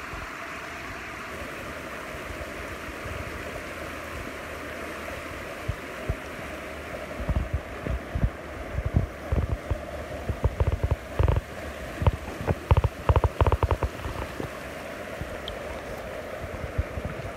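Shallow river rushing over stones, a steady watery hiss. From about six seconds in, irregular low thumps and bumps hit the microphone for several seconds.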